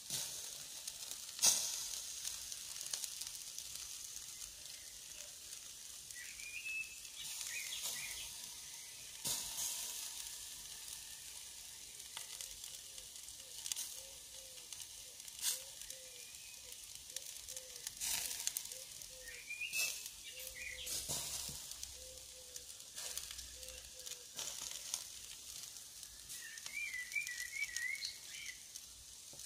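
Meat skewers grilling in a wire basket over charcoal embers, sizzling and crackling steadily. Sharp pops come now and then, the loudest about a second and a half in.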